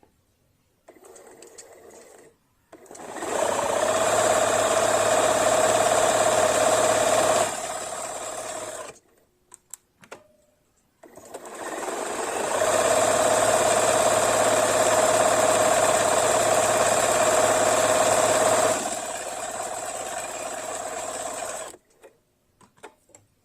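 Bernina Holidayne 1090 home sewing machine running fast twice, each run easing to a lower speed before stopping, with a few light clicks between the runs. The machine has just been oiled to free up mechanism seized from disuse.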